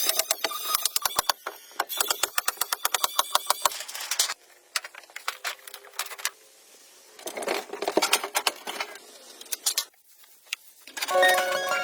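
A rapid run of light clicks and rattles for about four seconds, then a quieter stretch and a short burst of scraping or rustling. Plucked-string music starts near the end.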